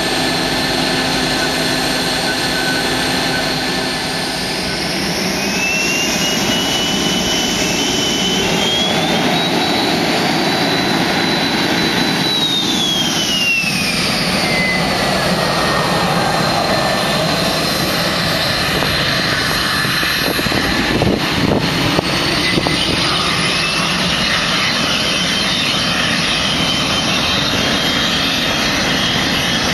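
Twin General Electric J85 turbojets of a T-38 Talon jet trainer running on the ramp, a loud steady jet whine. A high tone climbs in steps for several seconds, falls back about halfway through, and rises again near the end as the jet taxis away.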